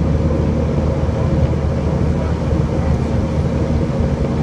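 Airbus A319 cabin noise after takeoff: a steady drone of the jet engines and rushing air, with a low hum and a few steady tones in it.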